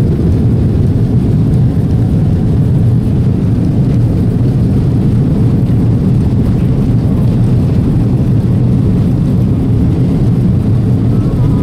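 Airbus A330 jet airliner heard from inside the cabin during its takeoff roll: a loud, steady low rumble of engines and runway noise.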